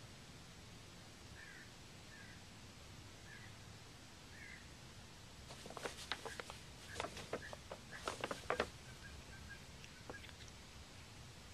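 Paper bag crinkling and rustling in a string of sharp crackles as a Siamese cat rolls and shifts inside it, loudest from about halfway through. Faint short chirps come in the first few seconds.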